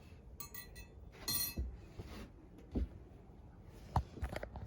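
Two short, light metallic clinks with a brief ring in the first second and a half, then a few soft knocks, like small parts being handled.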